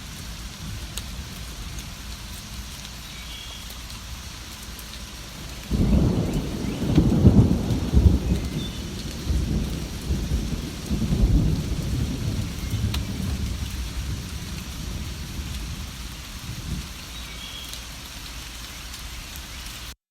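Steady rain with a roll of thunder that breaks about six seconds in, rumbles loudest for a couple of seconds, then dies away slowly. A few faint bird chirps sound now and then over the rain.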